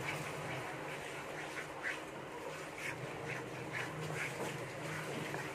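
Wheat flour roasting in ghee in a kadhai, stirred with a wooden spatula: the thick paste bubbles and spits with short, irregular pops every half second or so over a steady sizzle. It is being roasted until it turns brown.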